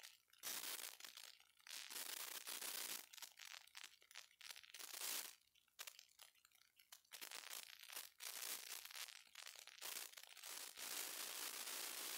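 Faint background hiss that cuts in and out in irregular patches, with near silence in the gaps.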